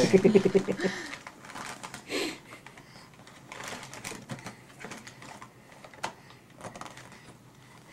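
A toddler's short buzzing vocal noise, pulsing fast, for about the first second, then scattered light clicks and rustles.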